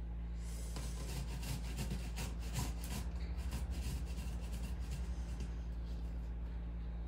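Onion grated by hand on the fine holes of a metal box grater: a quick run of rasping strokes, several a second, starting about half a second in and dying away after about five seconds.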